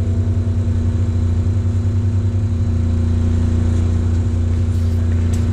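Fishing boat's engine running steadily: a constant low hum with a steady tone above it.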